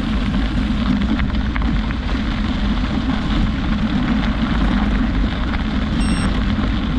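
Steady wind noise rushing and rumbling over the microphone while moving along, with a brief high tone about six seconds in.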